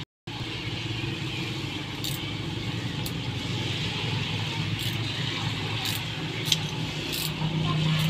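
A motor vehicle engine running steadily, a low hum, with a few light clicks now and then.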